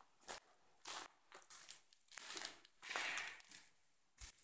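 Faint, uneven footsteps crunching and scuffing on a debris-strewn floor, a handful of steps.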